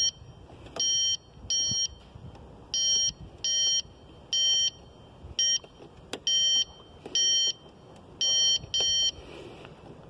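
A handheld circuit tester gives about ten short electronic beeps, mostly in pairs, as its probe tip touches one live fuse test point after another. Each beep signals that supply voltage is present, so that fuse is intact.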